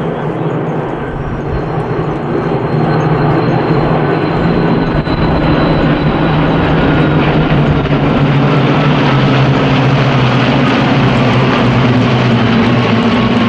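V12 piston engines of a group of Spitfires and Hurricanes running together, a loud steady drone that builds slightly a few seconds in and then holds.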